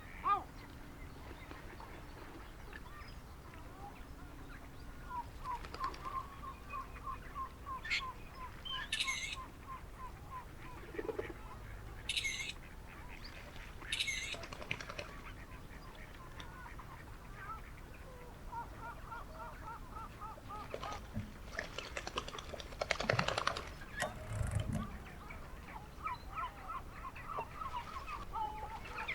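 Duck and ducklings calling: several runs of short, rapidly repeated notes, with sharper high calls now and then and a louder noisy stretch about three-quarters of the way through.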